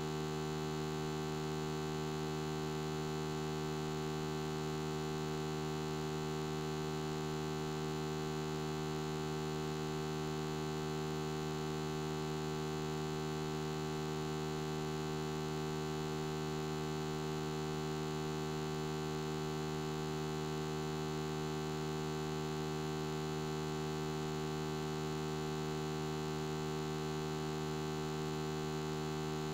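Steady electrical mains hum: an unchanging low buzzing drone with many overtones.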